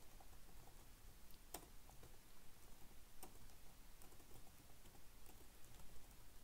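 Faint typing on a computer keyboard: scattered, irregular key clicks over a low hiss.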